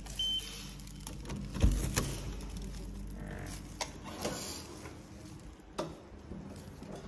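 A short electronic beep from a hotel key-card door lock, then a heavy thud about a second and a half later as the room door is pushed open, followed by scattered light clicks and knocks.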